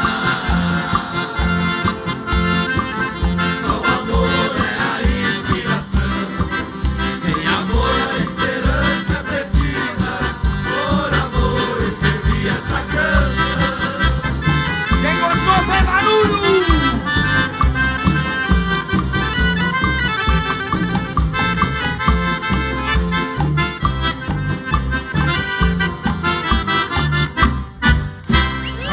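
Live band playing an instrumental passage of Brazilian country music, led by accordion over a steady bass beat.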